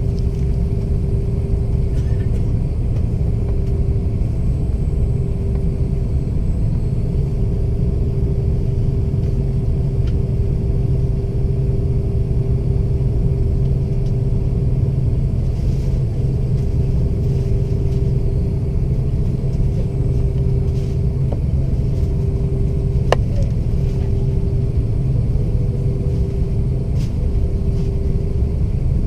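Airbus A330 jet engines and airflow heard inside the passenger cabin: a steady, loud low rumble with a steady hum on top.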